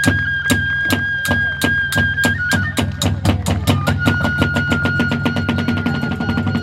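Kagura hayashi ensemble: a bamboo flute holds long notes over a drum and small hand cymbals struck in a steady beat that speeds up, about two strikes a second at first and much faster from about four seconds in.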